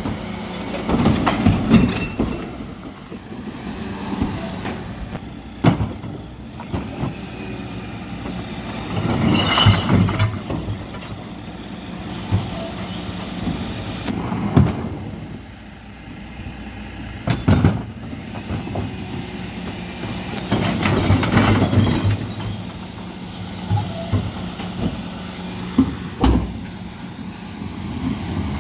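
Refuse lorry's diesel engine running steadily while the rear bin lifter tips wheelie bins of mixed recycling into the hopper: repeated rushes of recyclables clattering in, with a few sharp bangs of bins knocking against the lift.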